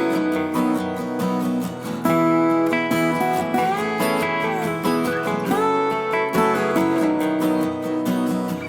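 Background music: strummed and plucked acoustic guitar with a country feel.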